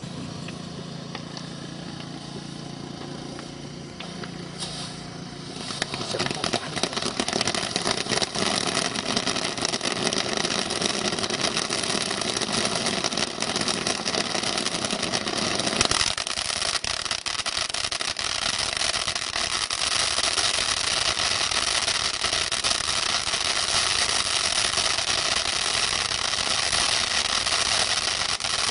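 Fan-shaped multi-tube firework fountain spraying sparks with a steady loud hiss and dense crackle, starting about five seconds in after a quieter lead-in. About sixteen seconds in the lower rumble drops away, leaving a steadier high hiss.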